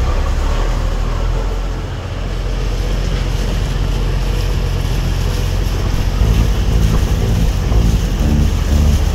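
Fishing boat's engine running under way, with wind and water noise.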